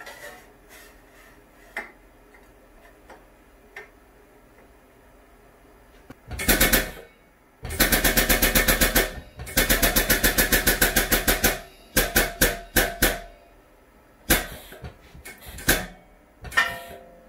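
DIY CNC press brake running a bend: its drive sounds in several bursts of a fast, even rattle of about ten pulses a second. The two longest bursts come near the middle, shorter ones follow, as the ram works down until punch and sheet just touch. Before that, a few faint clicks of the sheet being handled.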